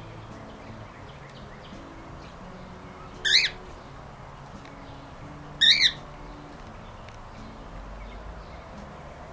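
Cockatiel giving two loud, short squawking calls about two seconds apart, over faint chirping of wild birds.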